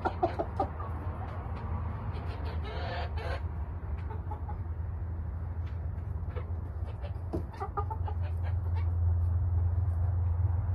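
Chickens clucking: a few short calls at the start, again about three seconds in and about seven and a half seconds in, over a steady low hum that grows louder near the end.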